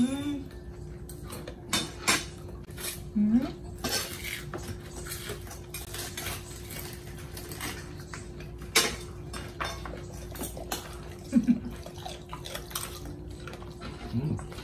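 Forks and spoons clinking and scraping on ceramic plates during a meal, in scattered sharp clinks, over a faint steady hum.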